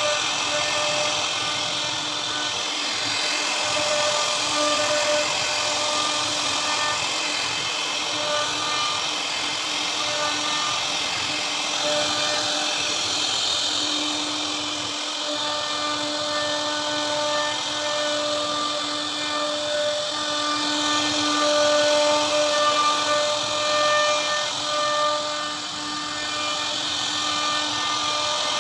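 CNC router spindle running with a steady whine while its bit carves a relief pattern into a wooden door panel, over a constant hiss of cutting. The whine grows stronger about halfway through.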